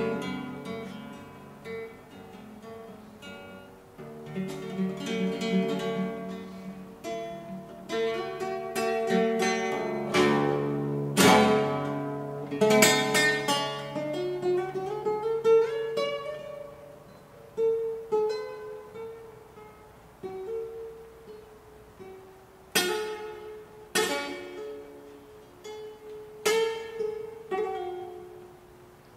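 Solo acoustic guitar played in flamenco style: picked melodic passages, soft in places, broken now and then by sharp strummed chords, with one note gliding upward about halfway through.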